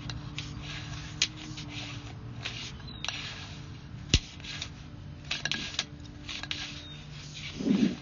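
Scattered clicks and short scraping rustles from a sewer inspection camera's push cable being worked through the drain line, over a steady low hum. One sharp click about four seconds in, and a low thump near the end.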